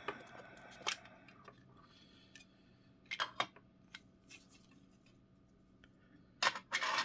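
Clear hard-plastic card case being opened and handled: scattered small plastic clicks, then a louder clatter and scrape near the end as the case is set on the table.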